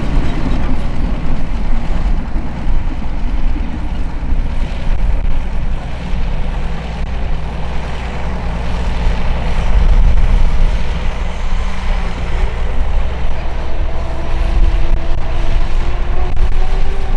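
Heavy construction machine's diesel engine running with a deep, continuous rumble; over the last few seconds a tone in it climbs steadily in pitch.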